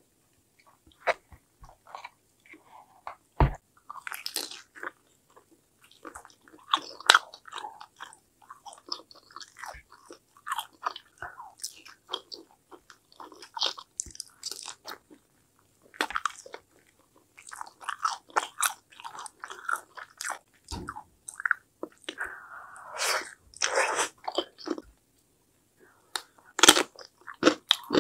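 Crunchy biting and chewing of crispy guobaorou (Korean-Chinese fried pork in a crackly potato-starch batter), close to the microphone. Loud crunches come in bursts every few seconds, with smaller chewing crackles and clicks between them.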